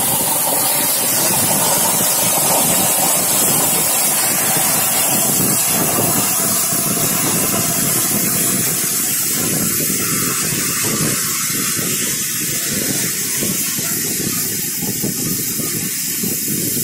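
CNC gantry plasma torch cutting steel plate: a loud, steady hiss from the cutting arc.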